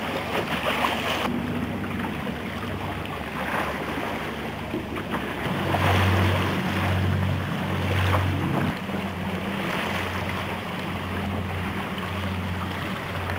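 Wind buffeting the microphone over water noise from a boat under way. About halfway through a low motor drone comes in, swelling and easing in short pulses.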